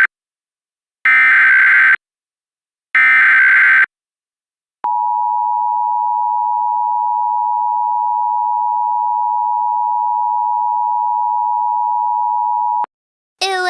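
Two bursts of EAS SAME header data, each about a second of harsh digital warbling, followed after a short gap by the EAS attention signal: a steady two-tone beep (853 and 960 Hz) held for about eight seconds before cutting off sharply. A voice begins right at the end.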